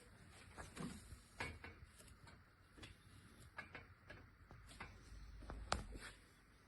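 Faint handling noise: a scatter of soft clicks and knocks over a low rumble, with one sharper knock about five and a half seconds in.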